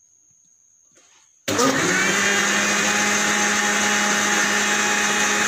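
Electric mixer grinder switched on about a second and a half in, then running steadily as it blends sapota fruit, milk and sugar into a thick shake in its large steel jar.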